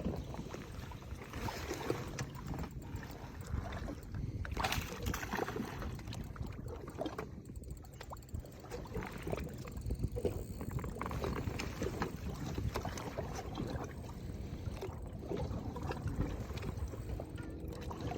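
Water and wind noise around a small boat on open water: a steady low rumble with scattered light knocks.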